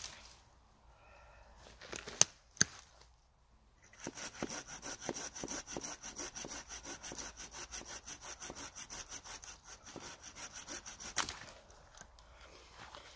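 Hand saw cutting through a thin log in quick, even strokes, about five a second, ending with a sharp snap as the cut goes through. Two sharp knocks come a couple of seconds before the sawing starts.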